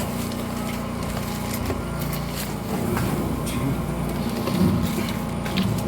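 Steady low machine hum with a few scattered clicks and knocks.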